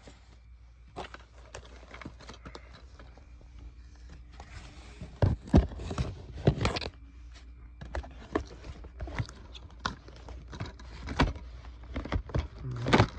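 Scattered knocks, taps and rustles of handling, loudest about five to seven seconds in and again near the end, as DVD cases and discs are handled and the handheld camera is moved about.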